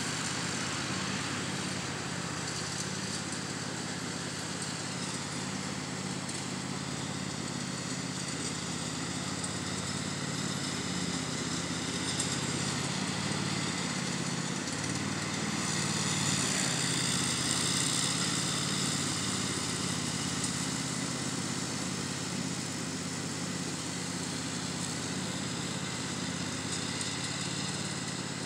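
Riding lawn mower engine running steadily under load while mowing, a little louder about halfway through.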